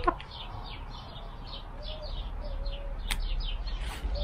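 Birds chirping in a quick, even run of short high falling chirps, with a hen's soft low calls a few times and a sharp click about three seconds in.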